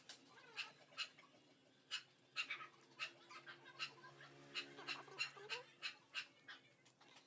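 Dog panting faintly in quick short breaths, about three a second, with a brief whimper about five and a half seconds in.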